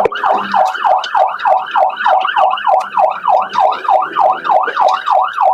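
Police car siren in its fast yelp mode, sweeping up and down about four times a second.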